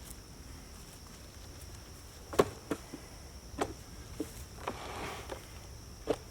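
Sharp knocks and clanks from levering a boulder along on a ratchet rock sled with a pry bar, about six strikes spread irregularly, the loudest about a third of the way in. A steady high insect drone runs underneath.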